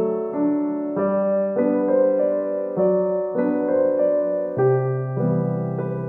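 Gentle solo piano background music, slow notes and chords struck and held.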